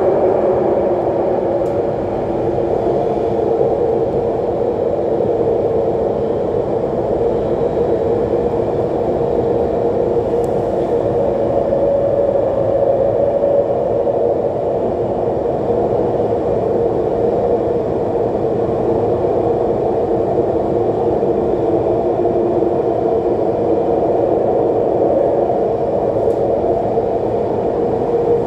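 Alstom Metropolis C830 metro train running steadily through a tunnel, heard on board: a constant rolling rumble with a held hum.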